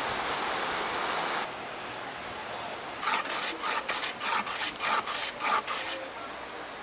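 A hand plane scraping shavings off a block of peanut brittle in quick repeated strokes, about three a second, for three seconds. Before that comes a second and a half of steady hiss.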